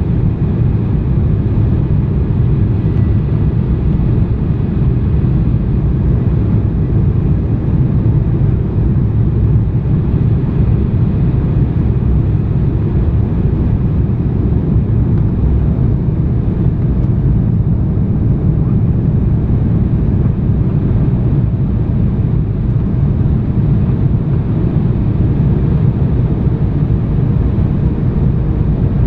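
Airliner cabin noise during the landing approach: the engines and rushing air make a steady, loud, low drone with a faint steady whine above it, heard from inside the passenger cabin.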